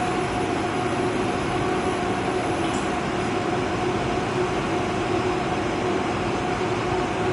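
Steady machinery hum with a constant low tone and even noise, unchanging throughout.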